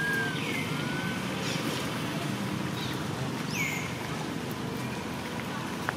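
Outdoor ambience: a steady low rumble with a few short, high calls that swoop down in pitch, the loudest about three and a half seconds in.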